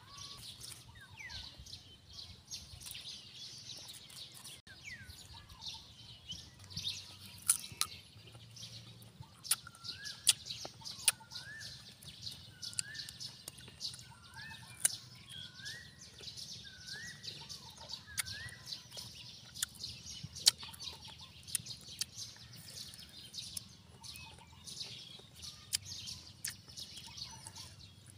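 Birds calling, including a run of about seven short calls, each rising and then levelling off, repeated about once a second through the middle. Over this come scattered sharp clicks from crisp raw green mango being bitten and chewed.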